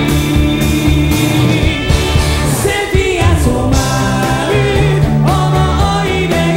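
A J-pop rock band playing live, with a male lead vocal sung over drums and a full band backing.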